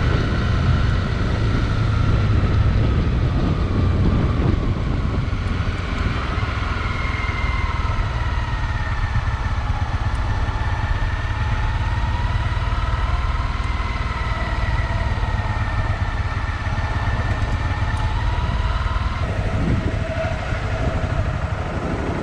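A vehicle on the move: steady engine and road rumble, with a faint whine that slowly rises and falls in pitch.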